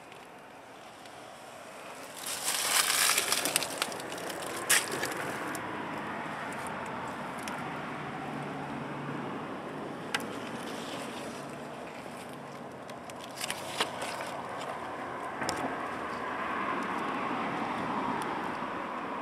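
Steady outdoor background noise, with rustling and handling noise as the vine's leaves are moved close to the microphone. A loud crackling rustle comes about two seconds in, and a few sharp single clicks follow.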